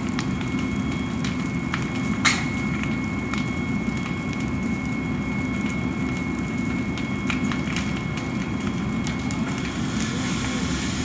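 A fire burning: a steady low rush with scattered sharp crackles and pops, the loudest pop about two seconds in.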